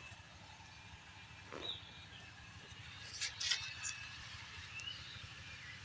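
A few short bird chirps over a steady noisy background, with a quick cluster of sharp clicks about halfway through.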